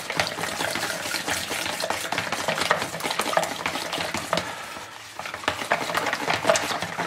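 Wire whisk beating a runny sauce of cola and ketchup in a ceramic bowl: a quick run of clicks and scraping against the bowl, with a short lull about five seconds in.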